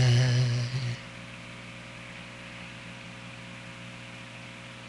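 A loud held tone with a steady buzzy pitch cuts off about a second in, leaving a steady electrical mains hum with faint hiss.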